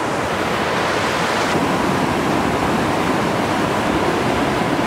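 Steady, even rush of a mountain stream's flowing water.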